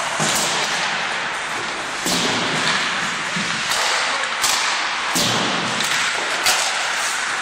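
Ice hockey rink: sharp knocks of pucks and sticks hitting the ice and boards, several in a row, over a steady hiss of skates on ice.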